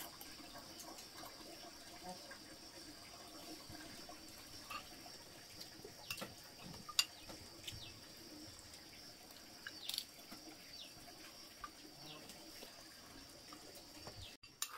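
Faint steady background hiss with a thin high steady tone, broken by occasional light clicks and clinks of chopsticks and spoons against bowls.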